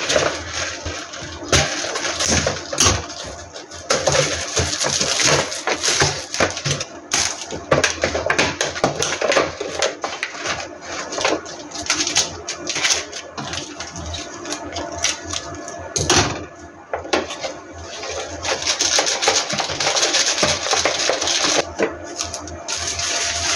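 Plastic film wrap on an instant-noodle cup crinkling in many short crackles as it is snipped with scissors and pulled off, over background music.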